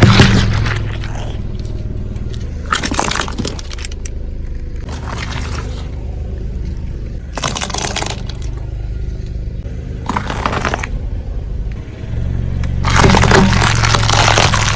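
Car tyre rolling over and crushing brittle objects: repeated bursts of crunching and cracking over a steady low car engine hum, with a longer crunch near the end.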